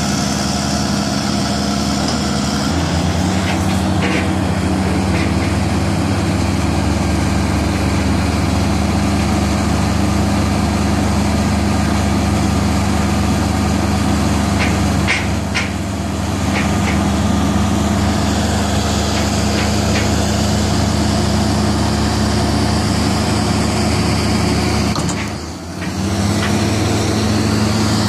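Caterpillar 318C hydraulic excavator's diesel engine running steadily while digging, with a few brief knocks. The engine note shifts about three seconds in and dips briefly near the end.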